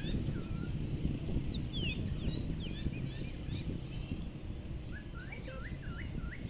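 Wild birds calling: a scatter of short high chirps, then from about five seconds in a quick run of repeated calls that each dip and hook upward. Under them is a steady low rumble.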